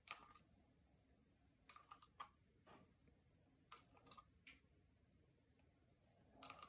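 Faint scattered clicks and light taps in small clusters, from a wooden stir stick knocking against a paper cup of epoxy resin as it is handled over a silicone mould.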